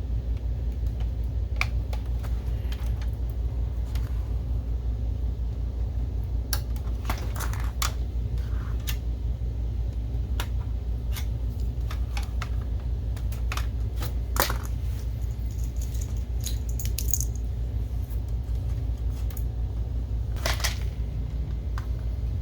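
Scattered clicks, taps and light rattles of small plastic and metal parts being handled and fitted during projector reassembly, over a steady low hum.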